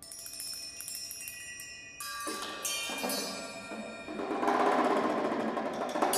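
Drum kit played with extended technique in free improvisation: quick light strikes with long ringing metallic overtones, a fresh strike about two seconds in, then a dense grainy texture on the drums that builds and is loudest near the end.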